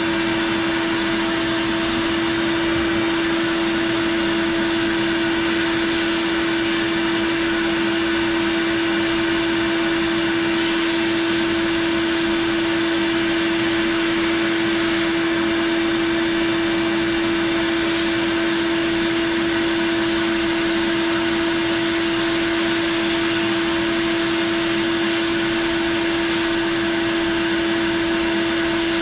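Shop vacuum running steadily on suction, a constant whine over a broad rush of air.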